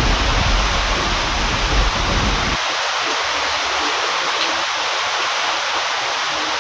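Heavy steady rain hissing, with a low thunder rumble underneath that ends abruptly about two and a half seconds in, leaving only the rain.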